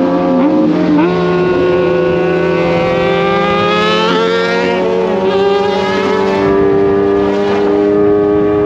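Kawasaki inline-four sport-bike engine running at steady road revs. Its pitch steps up about a second in and then climbs slowly, with a second, lower engine tone holding steady beneath it.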